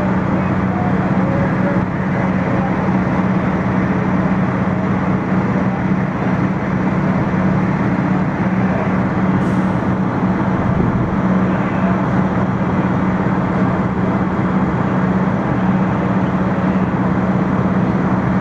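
Fire engines' diesel engines running steadily, a constant drone with a steady low hum and no change in pitch.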